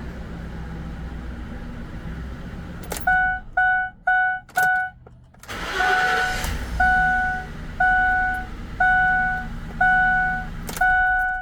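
The 2004 Ford Explorer's V8 engine idles smoothly with its new fuel pump. About three seconds in, an electronic warning chime starts dinging: quick dings at about two a second at first, then a steady ding about once a second.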